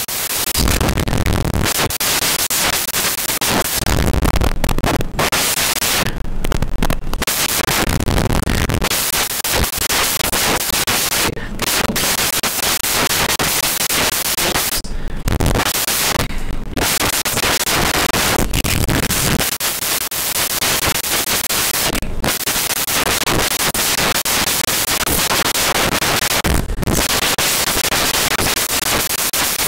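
Loud, steady static hiss covering all pitches, cutting out briefly several times.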